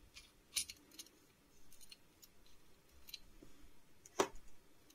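Faint small clicks and light metal taps as the parts of a disassembled airbrush gun are handled and taken out, with one sharper click about four seconds in.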